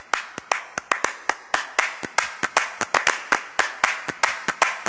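Rhythmic hand-clapping, about four to five sharp claps a second in a lively, uneven beat.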